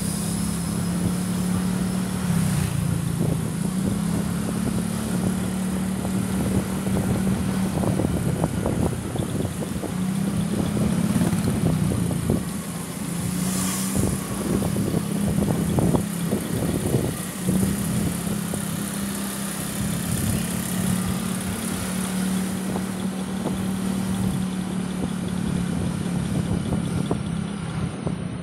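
Small motorcycle engine running at a steady low speed, its hum easing off briefly a few times, over road and wind noise.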